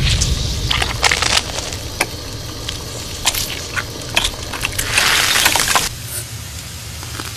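Plastic coating on a paperclip crackling and popping as it melts and bubbles under a torch flame, over a low steady rumble. A denser burst of crackling comes about five seconds in.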